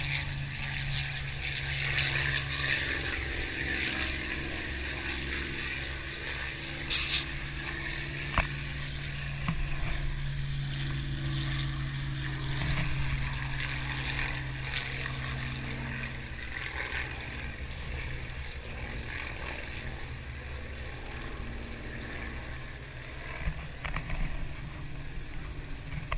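Piston-engined propeller aircraft droning overhead, the engine note sliding slowly in pitch as they pass, over a steady low rumble.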